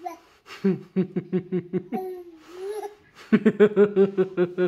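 Laughter in two runs of quick, rhythmic bursts, about five or six a second, with a short drawn-out vocal sound between them.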